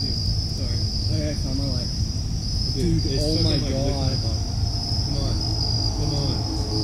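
Crickets chirping in a steady high trill over a low background rumble.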